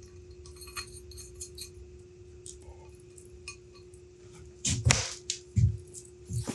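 Light metallic clicks and clinks as small steel parts of a fractal vise are handled, then a few louder handling knocks about five seconds in. A faint steady hum runs underneath.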